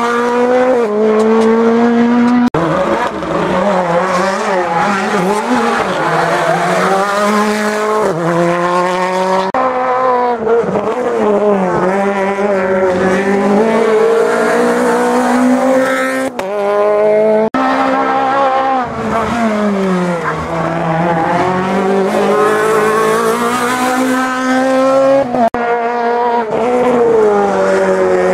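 Rally cars' engines revving hard through a tight bend, the pitch rising and falling with throttle and gear changes. The sound breaks off abruptly several times as one car's pass gives way to another's.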